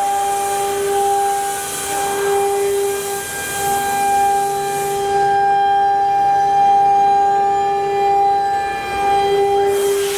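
CNC router spindle running with a steady high whine, while the bit cuts wood with a hiss. The hiss stops about halfway through and comes back near the end, leaving the whine on its own in between.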